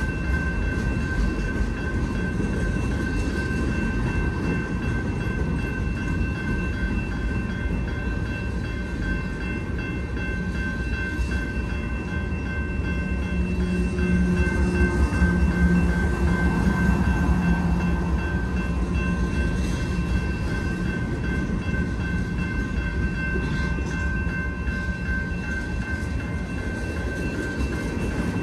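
Union Pacific manifest freight train's cars rolling past close by: a steady rumble of wheels on rail. Midway it grows louder for a few seconds with the low hum of a mid-train diesel locomotive (DPU) passing.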